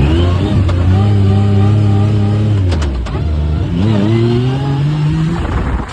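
Off-road vehicle engine running under throttle at a steady pitch, easing off just before halfway, then revving up again with a rising pitch.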